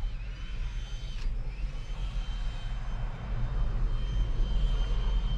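Large diesel engine running steadily, a low rumble with a thin high whine over it.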